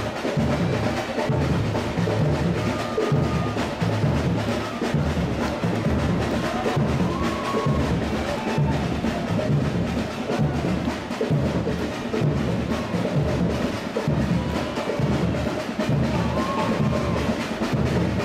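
Samba percussion band (bateria) playing a steady rhythm: deep bass drums mark the beat under lighter drums and clacking percussion.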